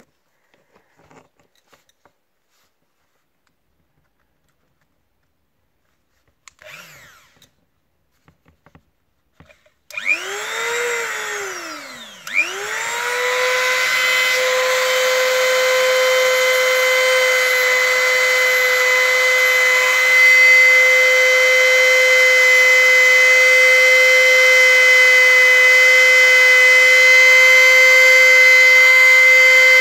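Small handheld rotary tool with a sanding drum starting up about ten seconds in: its whine climbs, sinks nearly to a stop, then climbs again and runs steadily at a high pitch as it is worked against the trimmer's plastic housing.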